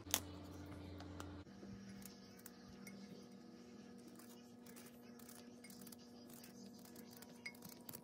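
Faint clicks and clinks of a kitchen knife working fresh coconut: prying the flesh from the shell, then slicing it into small pieces over a pot. One sharp click comes right at the start.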